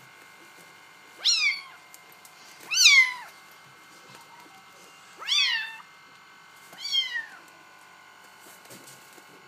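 A Bengal kitten meowing four times, short high-pitched calls that each rise and then fall in pitch.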